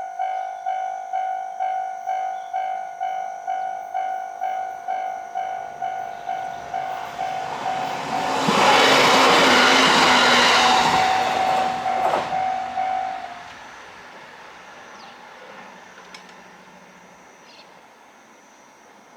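Japanese level crossing's warning bell dinging rapidly, about two to three strikes a second. A train passes through loudly from about 8 to 12 seconds in, and the bell stops about a second after the train has gone, leaving a quieter background.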